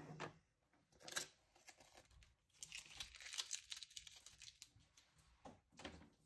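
Packing tape tearing and packaging crinkling as a shipping box is opened, in a few short, faint bursts with pauses between.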